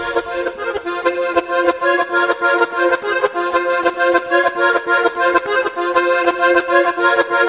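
Background music with sustained melody notes over a steady beat.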